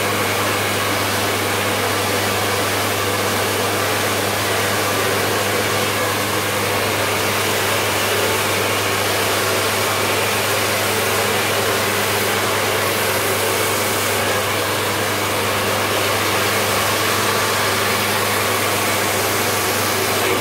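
Handheld hair dryer blowing steadily on hair worked over a round brush: a constant rush of air over a low motor hum.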